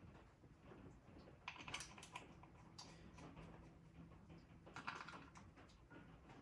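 Faint light clicks and rattles from hand tools and small metal parts being handled, in two brief clusters about a second and a half in and again near five seconds.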